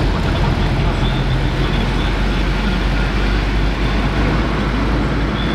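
Steady low rumble of road and engine noise from a car being driven, heard inside its cabin.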